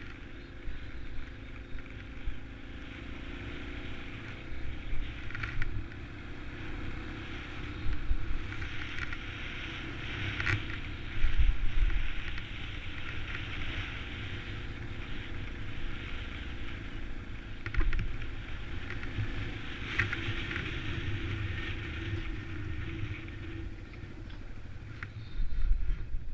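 Yamaha XT250 motorcycle's single-cylinder four-stroke engine running at low trail speed under way, with a steady rush of wind and road noise. Several louder low jolts and a few sharp clicks come and go, about a third of the way in, near the middle and near the end.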